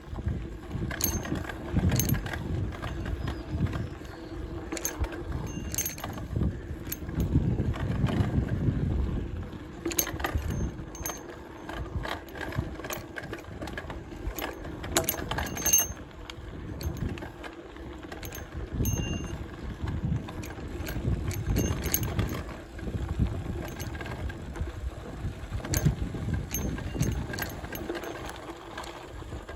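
Mountain bike riding along a dirt singletrack: a continuous low rumble from the tyres on the ground, broken by irregular sharp clicks and rattles from the bike jolting over bumps.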